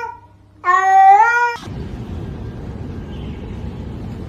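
A cat's long meow, rising slightly in pitch, starting about half a second in and cut off abruptly after about a second. It is followed by a steady rushing background noise.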